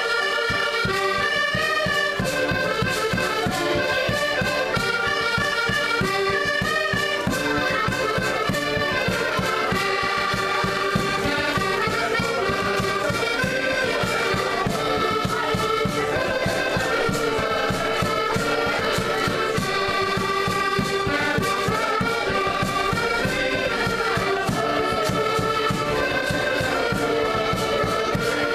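An ensemble of accordions playing a lively traditional folk tune together, with a bass drum keeping a steady beat.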